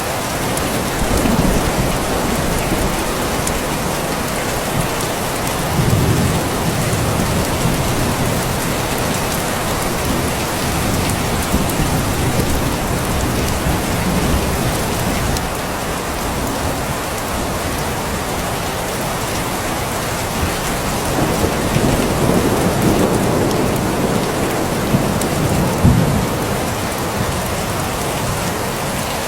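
Steady rain falling hard and even, with low rolls of thunder swelling under it several times, the strongest about six seconds in and again near the end.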